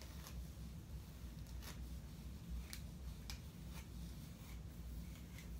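Plastic wide-tooth comb pulled through type 4 natural hair while detangling it: about six faint, brief strokes over a low steady room hum.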